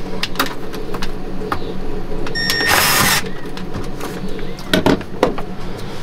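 A boat refrigerator's compressor and cooling fan running with a steady low hum. Over it come several clicks and knocks from handling, and a short hissing burst about three seconds in.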